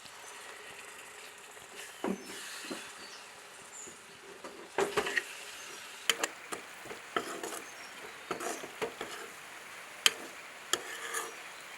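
Masala of ground tomato, onion and spices sizzling in butter and oil in a pan, stirred with a spoon that knocks against the pan several times.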